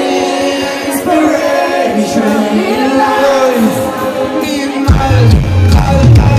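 Live Eurodance music: sung vocals over sustained synth chords, with a heavy bass line and beat coming in near the end.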